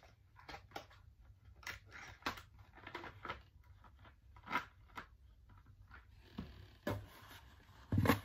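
Packaging and paper being handled while unpacking a box: irregular rustling, tearing and small clicks, with a louder knock about eight seconds in.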